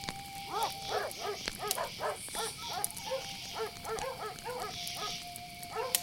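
A dog barking over and over, a quick run of barks starting about half a second in and continuing throughout, over a steady chorus of night insects such as crickets.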